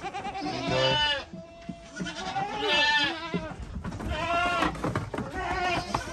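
Goats bleating repeatedly: about four long, wavering calls, several voices overlapping.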